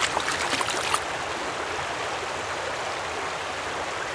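Running stream water, with splashing droplets in the first second giving way to an even rush of flowing water.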